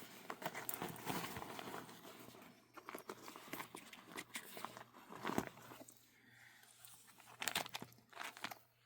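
Rustling and crinkling with scattered light clicks and knocks as small pieces of gear are handled and taken out of a bag, in uneven bursts with short quiet gaps.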